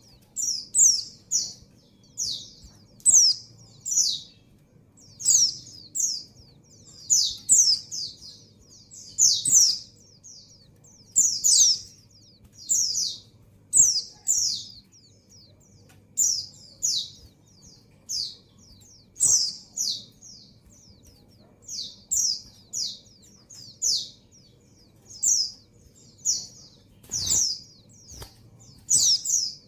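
Female white-eye (pleci) calling: short, high-pitched falling chirps given in quick clusters of two to four, repeated about once a second. The calls of a female in breeding condition calling for a male.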